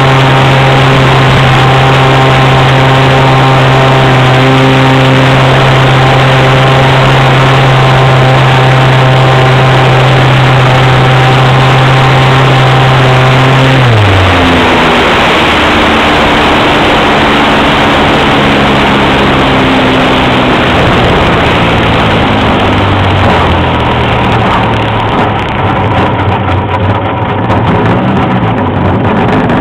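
Model airplane's .46 nitro engine, heard from a wing-mounted camera, running at a steady high pitch with a rushing haze over it. About halfway through the throttle is cut and the pitch drops abruptly to a lower, less steady note as the plane comes down to land, with the pitch rising a little near the end.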